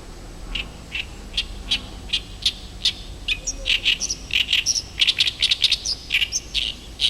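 Male Oriental reed warbler singing its harsh, chattering song: short rasping notes, slow at first and then coming faster and denser after about three seconds. This is the unpaired male's advertising song, sung constantly until he finds a partner.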